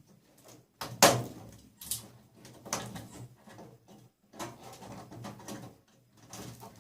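Irregular knocks and clatters of scrap parts and wiring being pulled out of an appliance and handled, with the loudest sharp knock about a second in and another just before two seconds.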